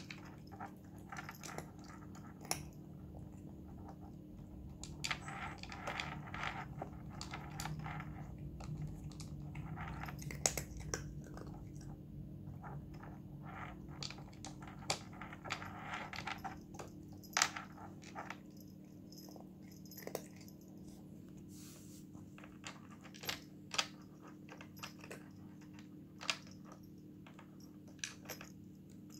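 Cat eating dry kibble from the plastic bowl of a SureFeed pet feeder: irregular crunching and sharp clicks, busier in two spells, over a steady low hum.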